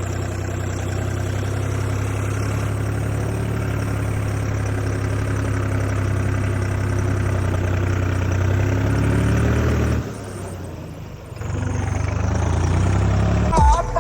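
Tractor engine running steadily with a low, even hum. About ten seconds in the sound drops away for a second or so, then the engine is heard again.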